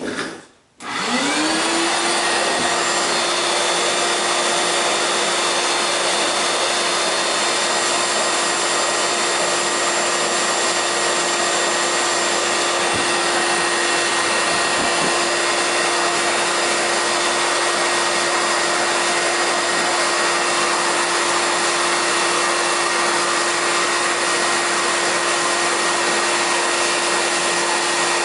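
Shop vac switched on about a second in, its motor whine climbing to speed and then running steadily, drawing air through a vacuum drywall sanding pad.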